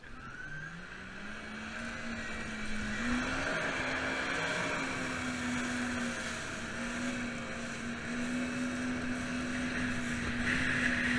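Engine of a Rescuerunner jet-driven rescue craft revving up as it pulls away, rising in pitch over the first few seconds, then running steadily at speed, with water rushing and spraying off the hull.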